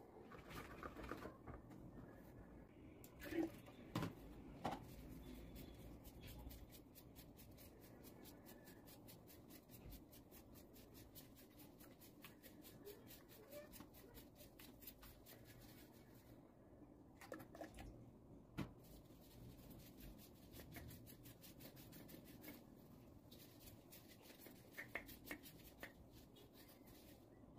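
Faint handling sounds of hands rubbing, pressing and turning a stiff, hand-made vase shell, with a few light knocks and clicks, most of them a few seconds in and again past the middle.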